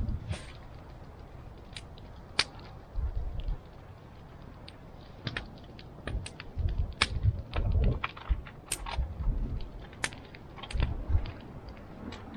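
Wood fire crackling, with irregular sharp pops and snaps, mixed with occasional low thuds.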